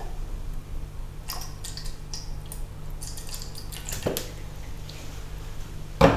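Pomegranate syrup dripping and squishing from a bottle's pour spout into a steel bowl, with a few faint clicks and a knock near the end, over a steady low hum.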